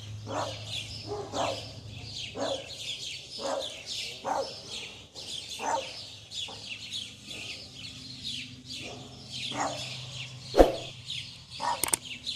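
A small dog barking over and over, roughly once a second, with birds chirping steadily in the background and a low steady hum. A single sharp knock stands out about two-thirds of the way through.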